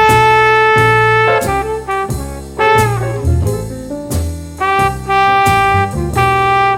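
Background jazz music with brass horns playing held notes over a walking bass and drums.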